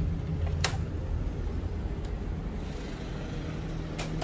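Steady low rumble of street traffic with a constant low hum under it, broken by a sharp click about half a second in and another near the end.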